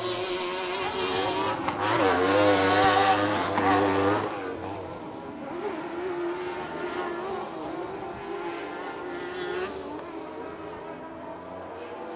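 Racing side-by-side UTV engines running hard on a dirt short-course track. About two seconds in, the engine note grows loudest, its pitch dipping and climbing again. From about four seconds on it settles to quieter, more distant engine sound.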